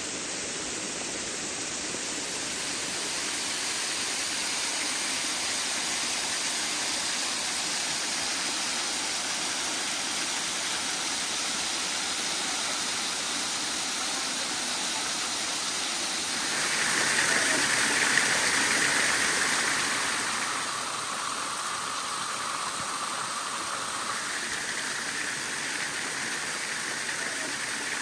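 Small waterfall cascading over rock ledges: a steady rush of falling and running water. It grows louder and brighter for a few seconds past the middle, then settles back.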